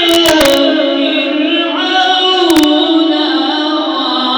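A male reciter chanting the Quran in the melodic mujawwad style, holding a long drawn-out note that rises and falls slowly in pitch. A few short clicks come near the start and again about two and a half seconds in.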